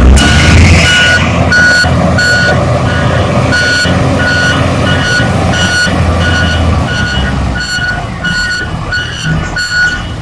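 Reversing alarm on a backhoe loader beeping steadily, about one and a half beeps a second, over its diesel engine running under load. The engine is loudest in the first second.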